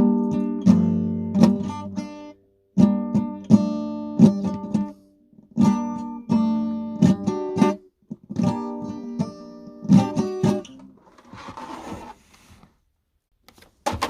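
A plucked string instrument played in short phrases of chords, stopping and starting between them. Near the end the playing gives way to a couple of seconds of rustling noise.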